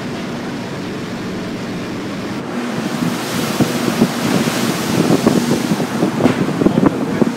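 Wind blowing across the microphone: a steady rush that turns into gusty, rumbling buffets about three seconds in.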